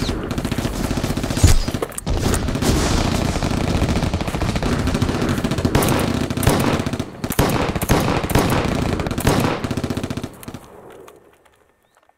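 Heavy battle gunfire: continuous rapid machine-gun fire with louder single shots standing out, fading away to silence about ten and a half seconds in.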